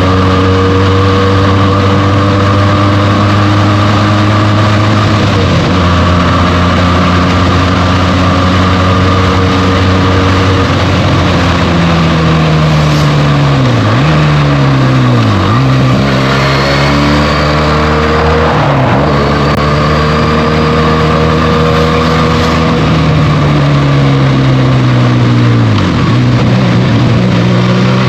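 Benelli TNT 300's 300 cc parallel-twin engine through its stock exhaust, pulling on the move. Its pitch dips sharply and climbs back several times as the rider shifts gears and rolls the throttle on and off, over a steady rush of wind and road noise.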